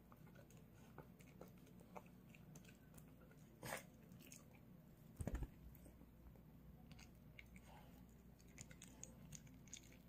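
A dog eating pieces of pork and dried pollack from a bowl: faint, irregular chewing clicks, with a brief louder sound a little under four seconds in and a dull thump about five seconds in.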